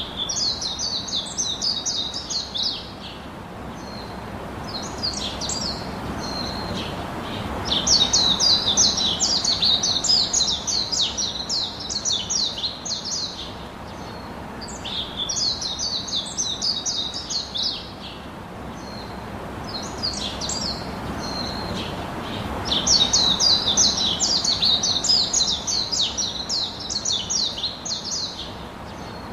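Birds chirping in quick runs of high, rapid calls. The runs last a few seconds each and come again after short pauses, over a steady background hiss.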